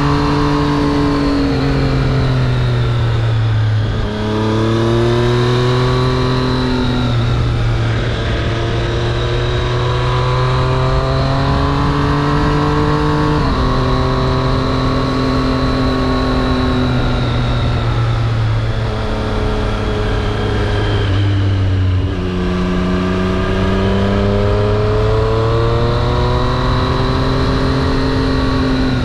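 Triumph Street Triple RS inline three-cylinder engine under way. Its revs climb and fall back several times, with sudden steps in pitch as the throttle closes and gears change.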